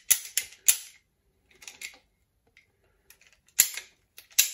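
Ratcheting pipe cutter being squeezed shut around a 25 mm plastic conduit tube, its ratchet clicking. A quick run of clicks comes in the first second, then a few spaced single clicks.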